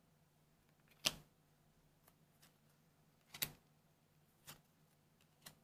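Trading cards being handled: a few light clicks and taps of the cards' edges, the sharpest about a second in and a double one in the middle, over a faint steady low hum.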